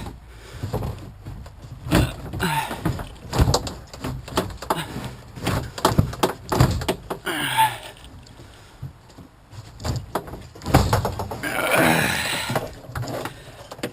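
Knocks, thumps and scraping as the engine compartment of a Mokai ES-Kape motorized kayak is worked loose and lifted out of the hull. A longer stretch of rubbing comes near the end.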